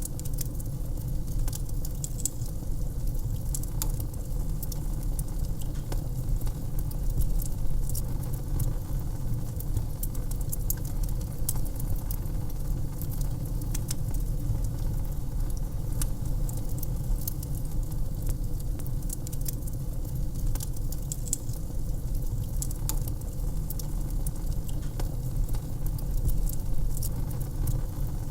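Wood fire crackling in a fireplace: frequent small, sharp pops and snaps scattered irregularly over a steady low rumble.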